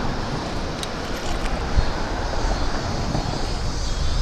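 Steady wind rush over the microphone with tyre and road noise from a bicycle being ridden, and a low thump about two seconds in.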